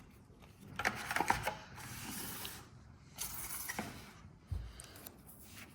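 Handling of a smartphone's retail box and its contents: a few light clicks, then two stretches of packaging rustling, and a dull low thump near the end.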